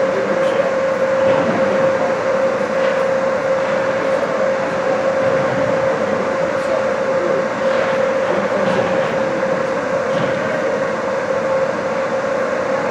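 Steady machinery drone filling an indoor ice rink, with one constant mid-pitched hum under it. A few faint, scattered clicks of hockey sticks and puck come through during play.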